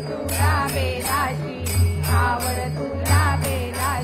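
A group of women singing a devotional Shiva bhajan in unison. Small hand cymbals clash and a barrel drum beats along in a steady rhythm.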